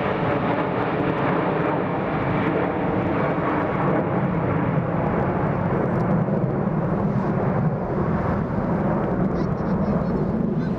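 Twin jet engines of a departing Boeing 777-200 at takeoff power, a loud, steady roar as the airliner climbs away.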